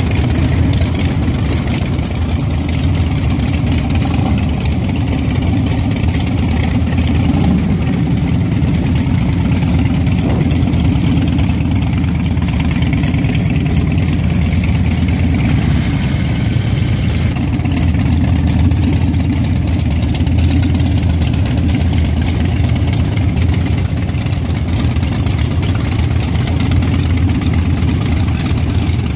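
Harley-Davidson V-twin motorcycle engines idling together: a steady, deep rumble.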